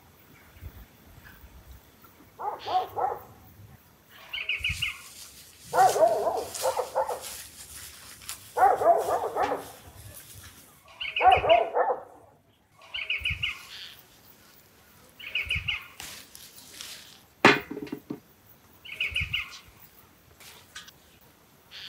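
A dog barking in several bouts of a few barks each, with short high chirps repeating every few seconds.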